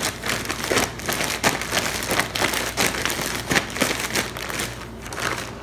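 Zip-top plastic bag being shaken, crinkling and rustling irregularly as the flour and buttermilk-dipped onion rings inside are tossed to coat them.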